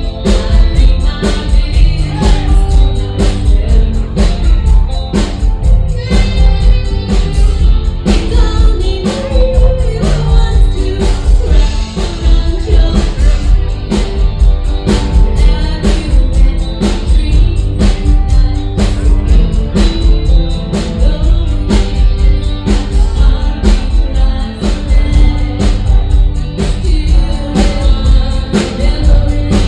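A song with singing over guitar and a steady drum beat.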